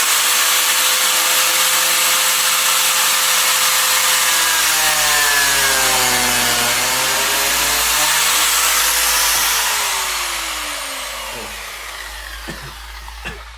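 Biscuit jointer's electric motor running at full speed with a high whine while its blade plunges into wood to cut a slot for a size 20 biscuit; the pitch dips under load around the middle. It is switched off and spins down to a stop near the end.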